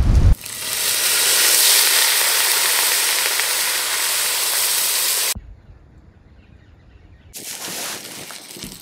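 Red wine poured into a hot cast-iron camp oven, sizzling and hissing loudly as it steams off the hot pot; the hiss cuts off suddenly about five seconds in. After a short lull, a campfire crackles more quietly near the end.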